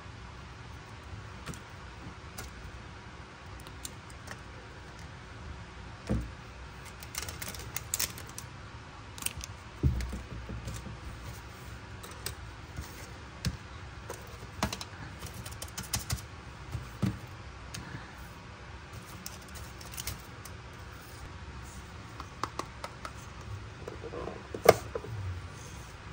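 Small plastic clicks, taps and light rattles of miniature toy kitchen pieces being picked up, opened and set down on a plastic toy table, scattered irregularly, with one sharper knock near the end.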